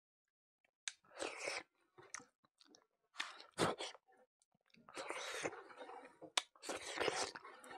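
A person chewing a mouthful of rice with the mouth, in irregular bursts with a few sharp smacking clicks, starting about a second in.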